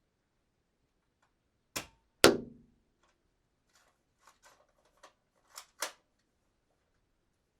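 Dart gun sound effect: a click, then one sharp shot with a short ringing tail, followed by a run of light mechanical clicks and two sharper clacks as the gun is cocked.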